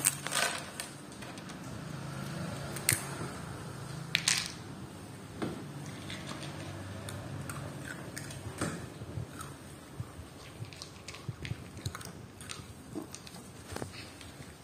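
A small dog crunching and chewing murukku, a crisp fried snack, from a plastic bowl: irregular sharp crunches and clicks, few at first and then many more in the second half.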